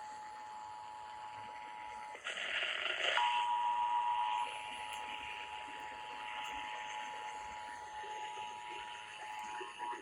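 Emergency Alert System attention signal: the steady two-tone alarm (853 and 960 Hz) heard over broadcast radio with background hiss. About two seconds in it breaks for a harsh, noisy burst lasting about a second, then returns louder before settling back.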